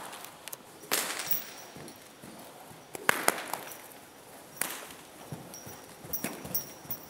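Three-year-old warmblood mare's hooves on arena sand as she goes from a walk into a trot. Several sharp cracks come about a second in, twice around three seconds in, and again near five seconds.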